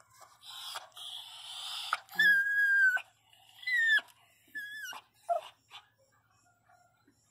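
Pinscher in labour whining in pain from contractions. A second or so of rasping breath is followed about two seconds in by four high-pitched whines: the first is held steady for most of a second, and the others are shorter and bend up and down.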